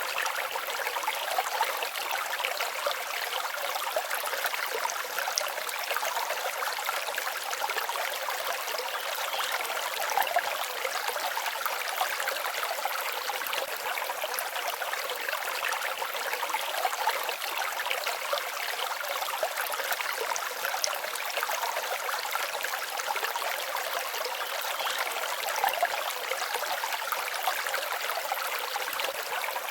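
Forest stream babbling steadily: a dense, even trickling and splashing of water, with almost no deep rumble.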